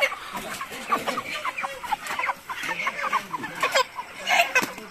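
A flock of broiler chickens clucking, many short overlapping calls, as they are caught and packed into wire crates. One louder squawk stands out about four and a half seconds in.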